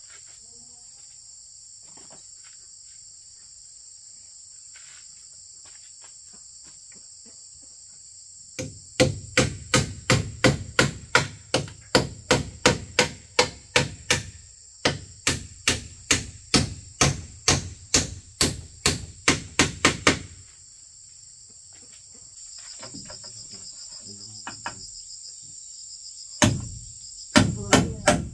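A rapid run of sharp blows, about three a second for some ten seconds with a brief break midway, then two more blows near the end. Insects chirr steadily in the background throughout.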